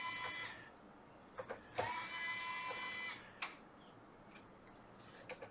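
A small electric motor whining in two bursts of about a second each, one ending just after the start and one about two seconds in, each rising quickly in pitch and then holding steady, with a couple of light clicks between them.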